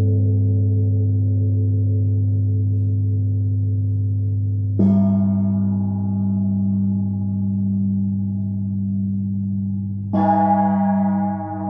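Gongs ringing: a small hanging gong is struck with a mallet about five seconds in and again near the end. Each stroke adds a brighter ring over a deep, steady hum that carries on throughout.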